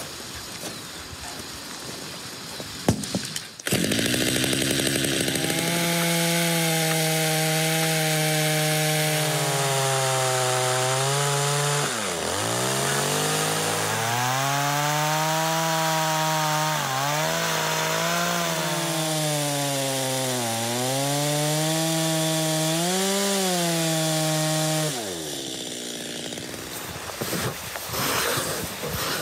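Chainsaw running under load, cutting slices into a log. Its engine pitch sags and recovers several times as the bar bites into the wood, then winds down near the end.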